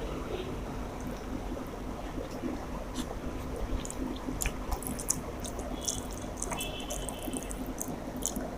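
Wet eating sounds of rice and chicken curry being chewed: a string of small, sharp, moist mouth clicks and smacks, thickest in the second half.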